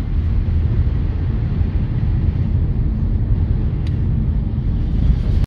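Steady low rumble of a car's engine and tyres heard from inside the cabin while driving on snow-covered streets.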